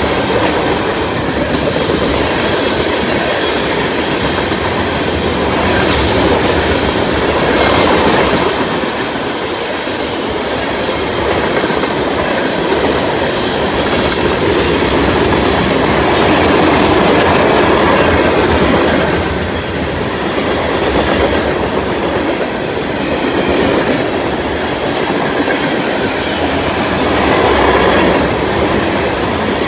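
Tank cars of a freight oil train rolling past: a steady rumble of steel wheels on rail, with occasional clicks as the wheels cross rail joints.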